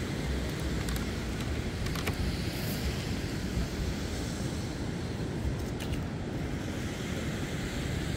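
Wind buffeting the microphone over the steady rumble of surf, with a couple of faint clicks as driftwood is handled.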